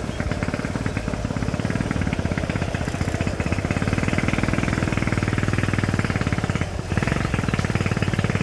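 Motorcycle engine and exhaust running steadily while riding at low speed, with a rapid, even beat. It eases off briefly near the end, then picks up again.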